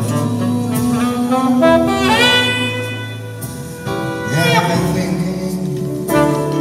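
Saxophone playing a slow jazz ballad phrase, with one long held note about two seconds in, over soft accompaniment.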